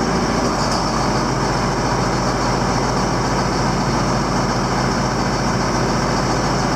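Farm tractor engine running steadily while the tractor backs up to an implement.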